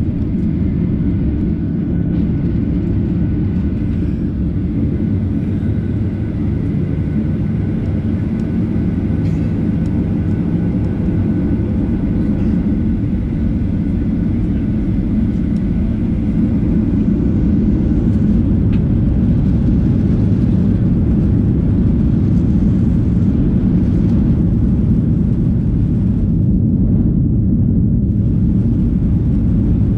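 A Boeing 737-800's CFM56 jet engines running, heard inside the passenger cabin as a steady low rumble with a faint high whine; the rumble grows louder a little past halfway.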